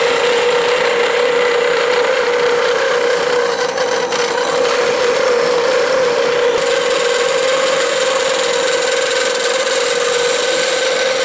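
Craftsman 15-inch slow-speed metal-cutting bandsaw with a bimetal blade sawing through 1/8-inch metal plate: a steady rasping cut with a constant tone running under it.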